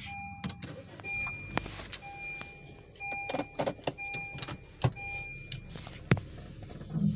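Car's warning chime beeping over and over, about once a second, over the low hum of the engine idling just after a push-button start. A few sharp clicks and knocks from inside the cabin, the loudest about six seconds in.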